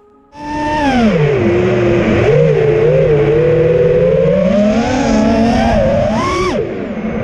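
FPV quadcopter's electric motors and propellers whining with throttle changes. The sound cuts in suddenly just after the start, drops in pitch, climbs slowly, then jumps higher around six seconds in and falls steeply near the end.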